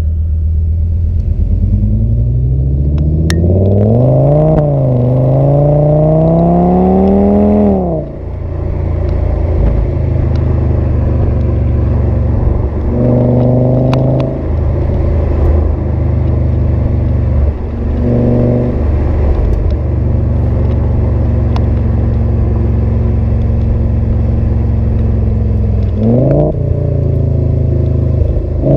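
A 2008 Audi S6's 5.2-litre V10 with a partially resonated Milltek exhaust pulls hard under acceleration. Its pitch climbs for several seconds, dipping briefly once at a gear change, then falls away as the throttle is lifted. It then drones at a steady cruise with two short throttle blips, and starts climbing again near the end.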